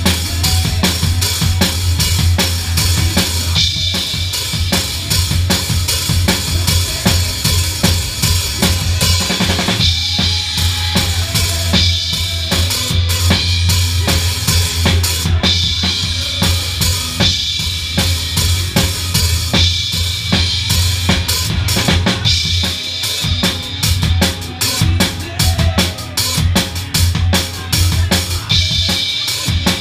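Drum kit played live, heard close to the kit: bass drum, snare and cymbals, including a Sabian HHX cymbal, in a steady groove. The strokes turn sharper and evenly spaced in the last several seconds.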